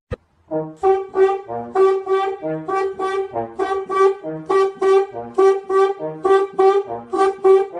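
Bouncy brass music: a quick run of short, detached notes over a bass line, in a steady beat.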